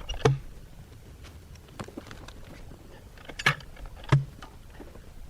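Scattered sharp clanks and knocks, the loudest three with a dull thump under them, over a low steady engine hum.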